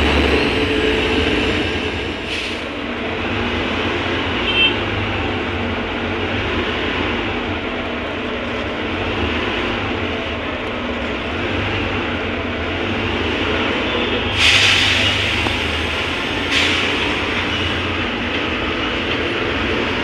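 Inside a moving city bus: steady engine and road rumble. A short high tone comes about five seconds in, and a hiss of about two seconds comes about three-quarters of the way through, the loudest moment.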